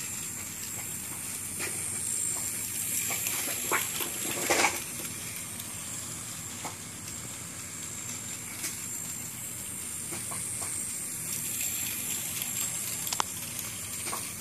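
Micro battery-powered toy train running on plastic track: the steady, quiet, high-pitched whir of its tiny TrackMaster-type electric motor and gears, with a few light clicks.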